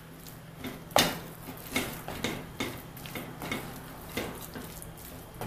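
Silicone spatula stirring and mashing thick mandioquinha purée in a stainless steel pot: one sharp knock against the pot about a second in, then a run of softer scraping strokes about every half second.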